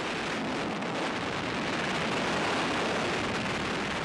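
Steady rush of wind across the microphone of a camera falling with a tandem skydive in freefall.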